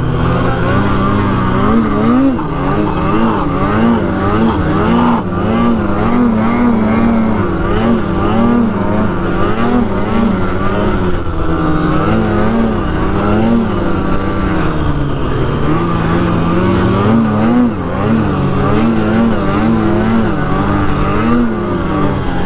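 Snowmobile engine running hard under throttle, its pitch rising and falling about twice a second, briefly easing off twice in the second half.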